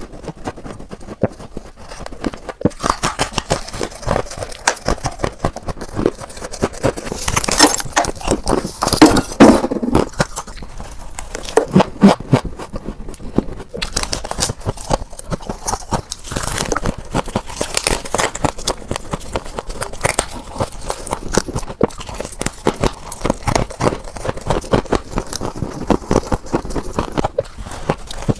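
Close-up crunching of scraped refrigerator freezer frost being bitten and chewed: a steady run of crisp crackles, with the loudest crunches about eight to ten seconds in and again around twelve seconds.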